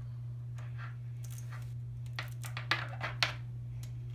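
Scattered small metal clicks and scrapes as needle-nose pliers work a brass crimp collar onto the end of a stainless steel braided PTFE hose, sharpest about three seconds in, over a steady low hum.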